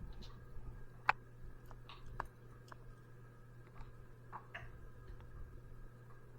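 Scattered small clicks and taps of a screwdriver and wires being worked in the push-in terminals of a ceiling fan pull-chain switch, the sharpest about a second in and another about two seconds in, over a faint steady hum.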